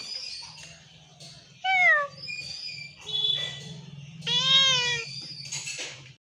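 Domestic cat meowing twice: a short falling meow about two seconds in, and a longer meow that rises and falls about halfway through.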